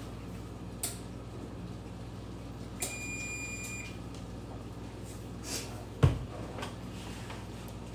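Kitchen counter sounds over a steady low hum: an electronic beep lasting about a second, a brief shake of a salt shaker, then a sharp knock on the counter about six seconds in, the loudest sound.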